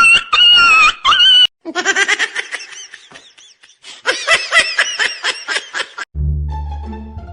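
A high-pitched pulsing tone, then a stretch of high-pitched laughter-like sound, then music with a low bass line starting about six seconds in.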